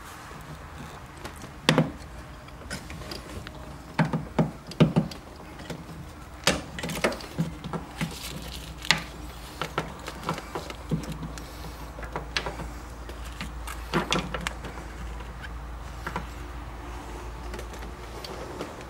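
Scattered clicks, taps and knocks of a C5 Corvette's shifter boot and its plastic base plate being worked loose by hand and lifted off the console, over a low steady rumble.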